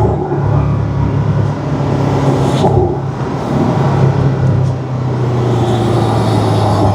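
Porsche 718 Cayman's turbocharged flat-four engine running under way, with its RaggDoll turbo inlet pipe fitted; a steady engine drone that eases briefly a little under three seconds in, then holds steady again.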